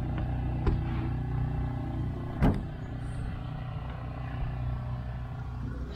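Small motorboat's engine running steadily with a low drone as the boat cruises along. A sharp knock sounds about two and a half seconds in, with a lighter tap before it.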